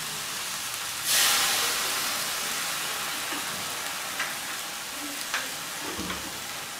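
Whole corvina and onion-tomato base sizzling in a frying pan. About a second in, wine poured into the hot pan sets off a sudden loud hiss that slowly dies back to a steady sizzle.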